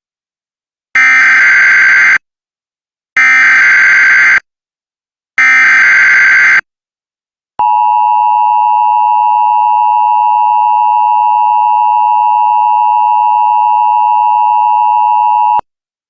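Emergency Alert System tones. First, three one-second bursts of screeching digital data: the SAME header, evenly spaced. Then the steady two-tone attention signal sounds for about eight seconds and cuts off abruptly. Together they announce the start of a tornado warning broadcast.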